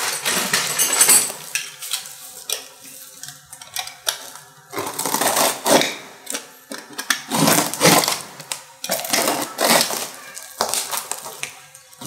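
A long cardboard box being opened and its packing handled: irregular rustling, scraping and knocking as the brush cutter shaft is unpacked.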